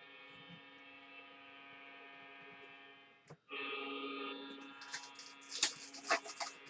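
Steady electrical hum with many overtones, getting louder after a brief dropout about three and a half seconds in. In the last two seconds, a few short, sharp crinkles from foil card-pack wrappers being handled.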